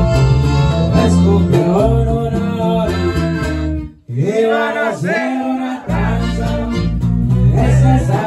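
Live norteño music: button accordion, twelve-string acoustic guitar and electric bass playing together, with a voice singing. About four seconds in the whole band cuts off for a moment, comes back without the bass, and the bass rejoins at about six seconds.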